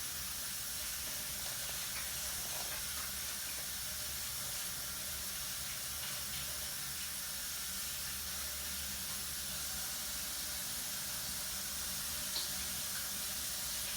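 Water running steadily from a tap into a sink, as slime is washed off hands.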